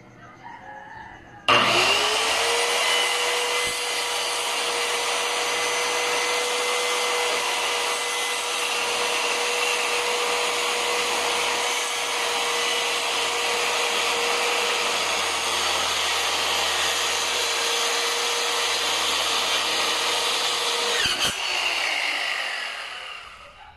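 Electric circular saw starting with a quick rising whine, then running steadily for about twenty seconds while sawing a wooden board. Near the end it is switched off and winds down.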